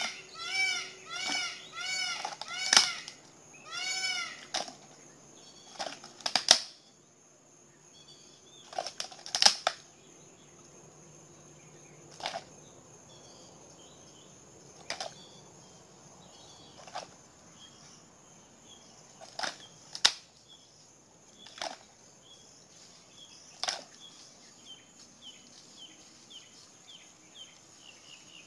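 A turtle's shell cracking in an alligator's jaws as it bites down again and again: about ten sharp, loud cracks a second or few apart. For the first few seconds a bird calls in a quick run of rising-and-falling notes, and faint high chirps come in during the second half.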